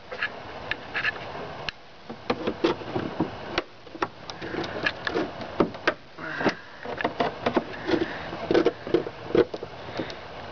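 Hard plastic of a stock airbox being pried and wrenched out with a pry bar: irregular clicks, knocks and creaks of plastic and metal.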